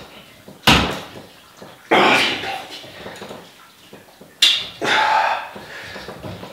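Handling of a large-format camera's metal tripod as its legs are adjusted: a sharp knock under a second in, then several short rushing or scraping noises, each starting suddenly and fading over about a second.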